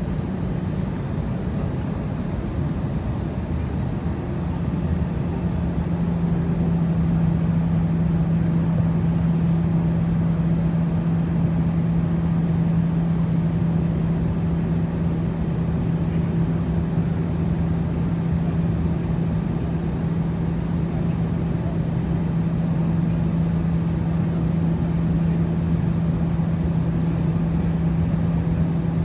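Airbus A319 cabin noise on approach: a steady rush of airflow with a low engine drone. About five seconds in, the drone drops a little in pitch and gets slightly louder.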